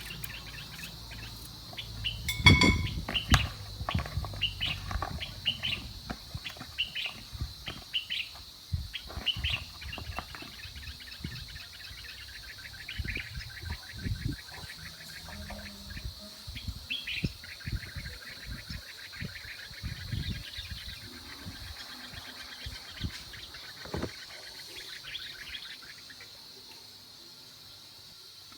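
Small birds chirping and trilling, with many short repeated chirps and a long trill in the middle, over a steady high-pitched hum. Scattered knocks and clatter of kitchen work run underneath, with a loud ringing clink about two and a half seconds in.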